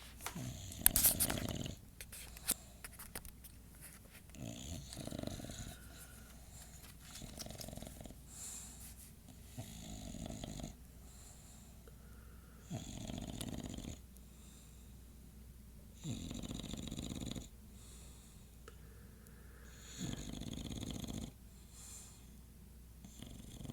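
English Bulldog snoring in its sleep, one snore every three to four seconds. The loudest snore, about a second in, comes with a few sharp clicks.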